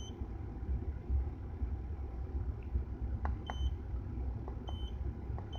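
Short high-pitched beeps, four of them, from a handheld OBD scan tool, with small button clicks, over the low steady rumble of a 1997 Acura Integra's B18B1 engine idling.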